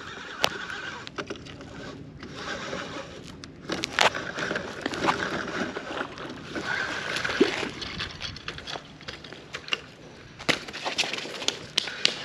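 Rustling and scuffing of a fleece sleeve rubbing across a body-worn camera, with scattered clicks and knocks.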